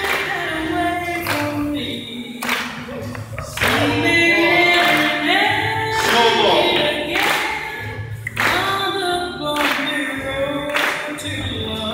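Swing music with several voices singing together in harmony, punctuated by sharp accented hits about once a second.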